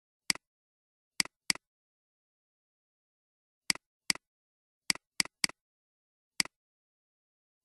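Computer mouse button clicked about nine times at an irregular pace, each click a sharp press followed at once by a softer release tick, with total silence between clicks.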